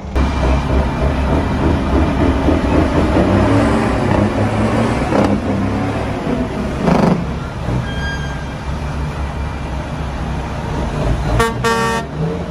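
Heavy diesel truck engine running with a loud, steady low rumble and a couple of brief surges of noise. A short horn toot sounds near the end.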